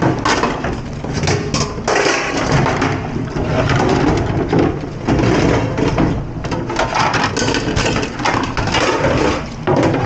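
Dishes and utensils clattering and knocking continuously as they are handled at a commercial kitchen dish station.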